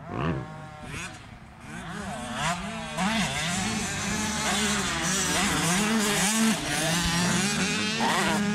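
Motocross dirt bike engines revving hard, several at once, their pitch climbing and dropping again and again as the bikes accelerate and shift gears; louder from about three seconds in.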